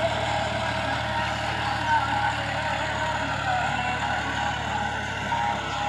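Massey Ferguson 260 tractor's diesel engine running steadily under load while it pulls a disc harrow through tilled soil.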